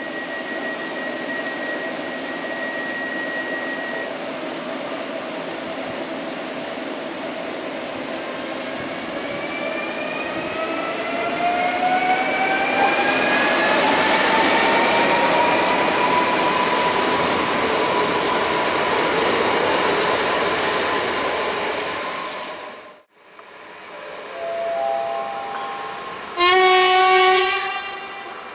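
Newag Impuls electric multiple unit pulling away and accelerating: its traction motors whine, rising steadily in pitch, over the rumble of the train passing. Near the end a train horn gives one loud blast of about a second, the Rp1 'attention' signal, after a few shorter, quieter tones.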